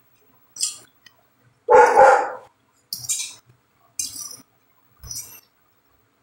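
A dog barks twice in quick succession about two seconds in, the loudest sound. Around it come short, soft eating sounds: chewing and a fork on a plate, a few times.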